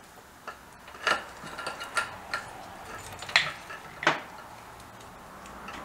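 Metal motorcycle parts and hand tools clinking and knocking against each other as parts are fitted by hand: several separate sharp clinks, some with a brief metallic ring.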